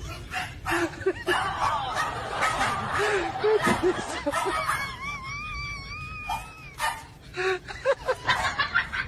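Small bulldog barking in short yaps, mixed with a person laughing.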